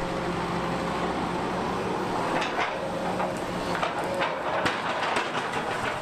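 Doosan DX380LC crawler excavator's diesel engine running steadily, with several sharp knocks and clanks as its grab works among rock armour.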